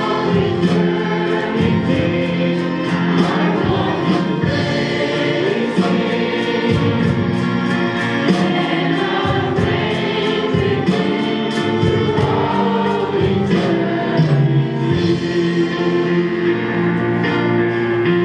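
Choir singing a gospel worship song over instrumental accompaniment with a steady beat.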